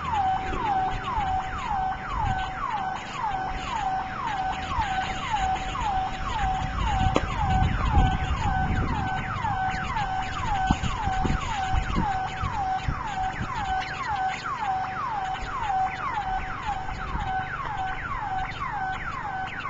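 Burglar alarm siren sounding in a repeating falling sweep, about two a second, over a steady tone, with wind rumbling on the microphone. It is a false alarm, which the neighbour blames on the high wind setting it off.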